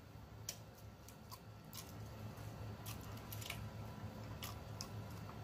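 Faint mouth sounds of a person chewing food, with a scattering of soft wet clicks and smacks over a low steady hum.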